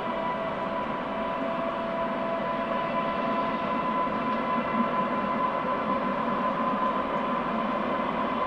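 Trenord DE 520 diesel-electric locomotive hauling two coaches past at a distance, its diesel engine running steadily. A steady high whine sits over an even running noise.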